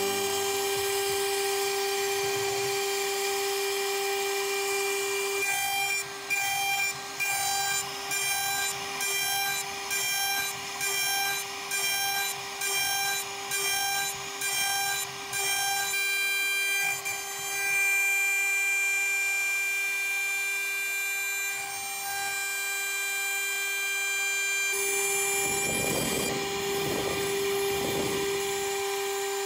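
CNC router spindle at 24,000 rpm running a 6 mm two-flute end mill through beech wood: a steady high whine with the rough noise of the cut. Through the middle the sound dips and comes back in a regular rhythm, about three times every two seconds. Near the end rougher, lower cutting noise joins in.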